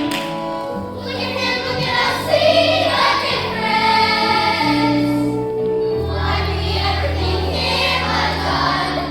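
A young cast singing together over instrumental accompaniment in a stage-musical number, with held notes that change every second or so.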